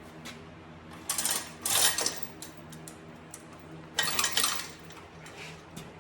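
Metal tools and parts clanking and scraping in three loud bursts, about a second in, just before two seconds and around four seconds, over a steady low hum.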